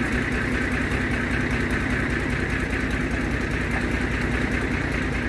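Plymouth switcher locomotive's engine idling steadily, with a low, even pulse.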